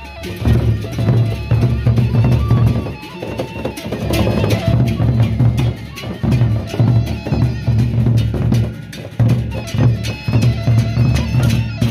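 Gendang beleq ensemble playing: large double-headed Sasak barrel drums beaten with sticks in a fast, dense rhythm of deep thuds and sharp strokes, loud throughout.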